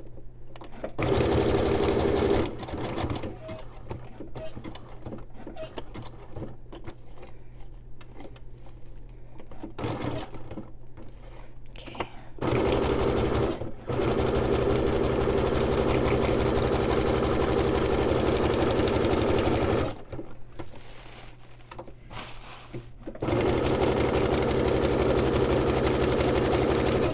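Electric sewing machine stitching a wide zigzag stitch through a playing card, its needle running in quick, even strokes. It runs in bursts with quieter pauses between: briefly about a second in, again near twelve seconds, then a long run of about six seconds and another from about twenty-three seconds on.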